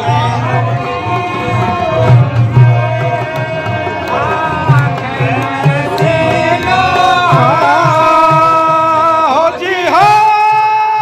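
Men singing a Hindu devotional bhajan in a loud, wavering lead voice, accompanied by a dholak hand drum. The drum strokes are strong in the first part and weaken in the second half, where the voices hold long, sliding notes.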